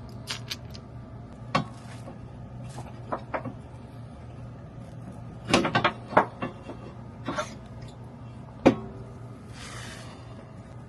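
Scattered clicks and knocks from hand tools and parts being handled during rear air-suspension work on a car, with a quick cluster of them about halfway through and a sharp knock near the end, followed by a short hiss, over a steady low hum.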